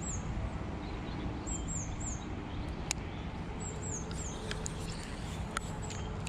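A small bird calling: high, thin chirps that slur downward, in short runs of two to four, over a steady low rumble of outdoor noise. A few sharp clicks come in the second half.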